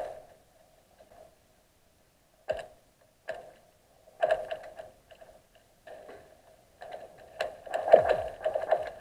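Newly forming first ice cracking, heard from under the water: a string of sharp cracks and pings that ring briefly, sparse at first and crowding together near the end. The loudest crack, about 8 seconds in, trails off in a falling low tone.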